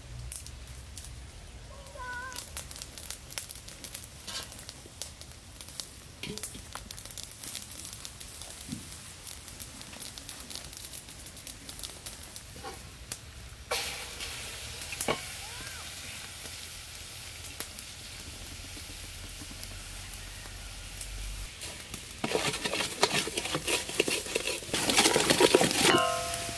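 Brown sauce sizzling in a hot aluminium basin over a wood fire, after a first half of only faint scattered clicks and crackles. The sizzle starts about halfway through and grows much louder near the end as a wooden spoon stirs and scrapes it around the basin.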